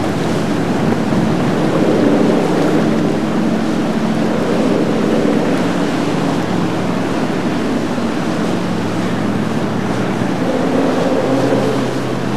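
Outboard motorboat engine running steadily under a constant rush of churning, wave-broken water as boats cross the canal's standing waves.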